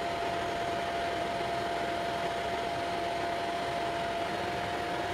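Steady background hiss with one constant mid-pitched tone held unchanged throughout, like an appliance or fan running. No other distinct sounds.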